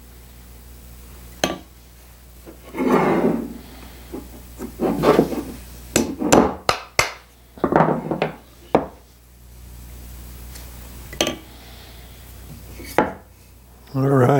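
Wooden chair rocker pieces and dowels being handled and fitted together on a workbench. There are scattered sharp wooden knocks and clicks, and several short rubbing scrapes.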